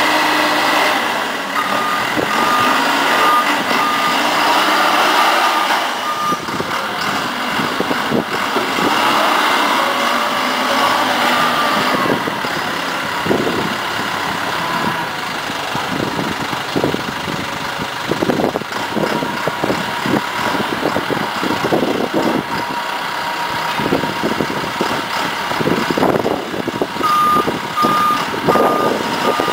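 Omega Lift Mega Series 10MS rough-terrain forklift running as it manoeuvres, with its reversing beeper sounding an even series of beeps for the first few seconds and again near the end.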